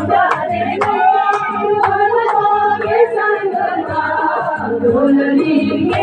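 A group of women singing a folk song together, with a sharp beat about twice a second.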